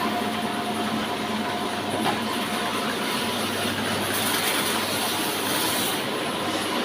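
Horizontal log band saw running with a steady, dense mechanical noise.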